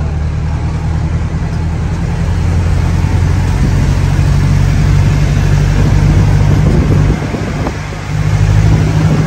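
Tractor engine running steadily under way as it tows an open-air tram carriage, heard from on board. The engine dips briefly about seven seconds in, then picks up again.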